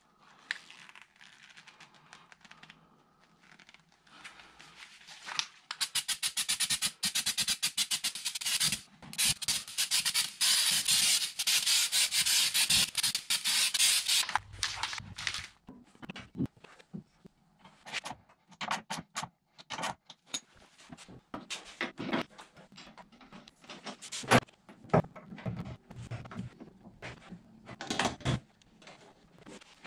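Workshop work on a car body: rubbing or scraping noise in quick strokes for about eight seconds, then scattered light knocks and clicks of metal parts being handled.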